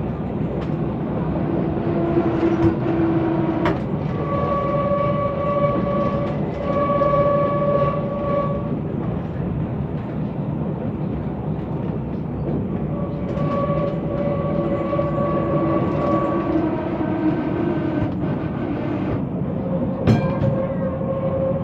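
Vintage tram TW 206 running along its track with a steady rumble of wheels and motor. Drawn-out steady high tones, several seconds each, come and go over the rumble, twice in the middle. A sharp knock comes near the end.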